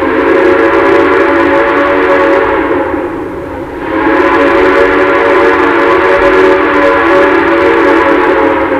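Steam chime whistle of 2-6-6-2 Mallet steam locomotive No. 1309, blown in two long blasts: the first lasts about three seconds, and after a short break a second, longer one starts about four seconds in.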